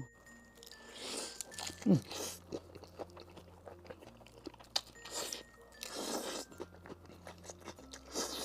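A person eating close to the microphone: several crunchy bites and chewing, spaced a second or more apart.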